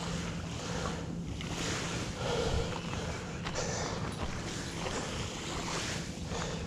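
Wind buffeting the microphone and small waves lapping along a gravel lake shore, over a steady low hum.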